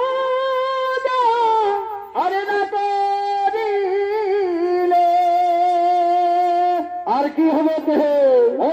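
Shehnai-type double-reed pipe playing a Chhau dance melody in long held, nasal-toned notes with short breaks and slides. One note is held steady for about two seconds in the middle, and a falling slide comes near the end.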